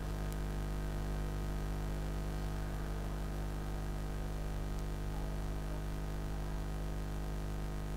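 Steady electrical hum with a layer of hiss, the recording's background noise with no other sound over it.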